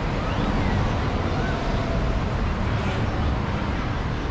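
Busy city street ambience: a steady wash of traffic noise with scattered voices of passersby.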